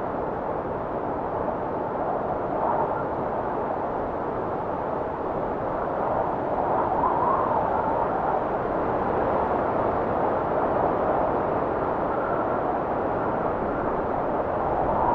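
Wind blowing steadily: a rushing hiss with slow swells and a faint wavering whistle, a little stronger about halfway through.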